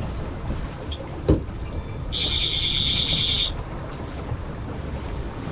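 Boat engine running steadily at trolling speed, with wind and water noise. There is a sharp knock about a second in, and a high buzz lasting about a second and a half a little after two seconds in.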